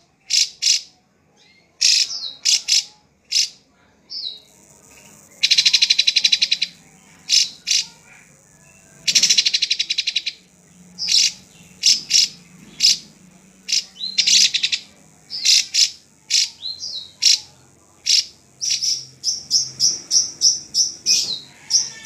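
Caged drongo (srigunting) singing loudly: short whistled notes and chips broken by gaps, with two longer fast rattling trills and a quick run of short notes near the end.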